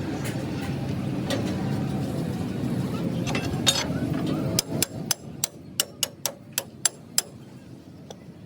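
About ten quick hammer blows, roughly four a second, after a steady low rumble.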